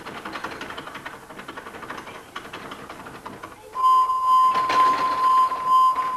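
A steady, high-pitched electronic beep tone starts about four seconds in and holds without a break, over a faint hiss with light clicks and a few knocks.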